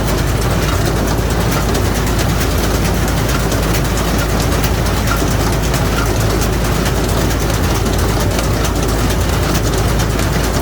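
Rice-straw baler running steadily under way: a deep engine hum with a fast, even mechanical clatter from the baling mechanism.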